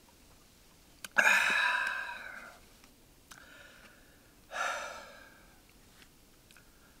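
Food sizzling in a hot pan in two bursts, each starting suddenly and dying away over a second or so, the second quieter than the first. The food is catching and sticking to the pan for want of enough sesame oil.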